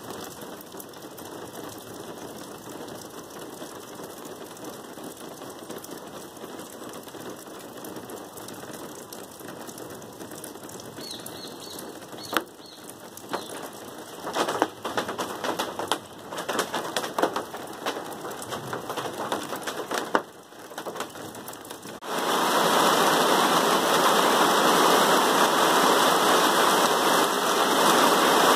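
Rain falling in a storm: a light steady hiss with irregular sharp taps in the middle, then, about twenty-two seconds in, a sudden change to heavy rain pouring down in a loud steady rush.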